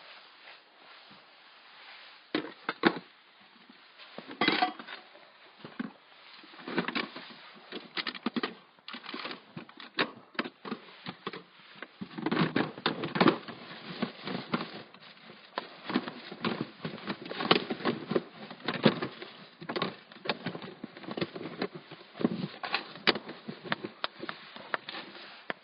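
Irregular knocks, clinks and rustling from camp cookware and gear being handled, coming faster and louder about halfway through.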